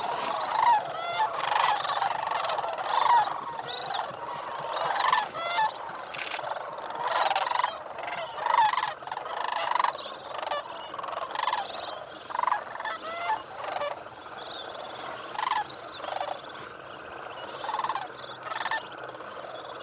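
A large flock of sandhill cranes calling over one another, many rolling, trumpeting calls overlapping. The chorus is dense at first and thins to scattered calls after about ten seconds.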